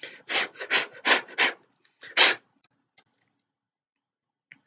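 Fingers rubbing dust out of the inside of an opened computer mouse: about six quick scraping strokes on the plastic in the first two and a half seconds, then a few faint clicks.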